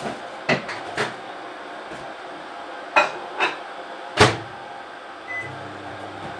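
Clicks and knocks of a microwave oven being loaded and its door shut, the loudest a sharp clack a little past halfway. Then a short beep, and the oven starts running with a low steady hum.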